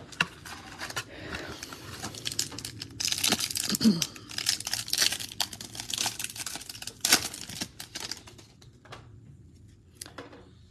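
Foil wrapper of an Upper Deck 2022-23 Series One hockey card pack being crinkled and torn open by hand. The crackling is loudest in the middle, and a few quieter rustles follow near the end as the cards come out.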